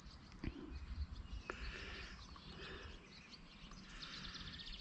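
Faint birdsong: scattered short chirps, with a quick trill near the end, over a faint low rumble.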